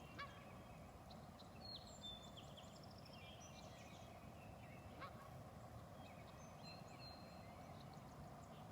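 Faint songbirds chirping, a scatter of short high notes and brief trills, over a steady low background hum.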